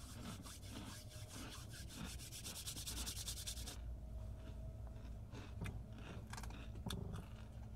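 Hands rubbing briskly together to warm them against the cold, for nearly four seconds before stopping suddenly; a few faint clicks follow.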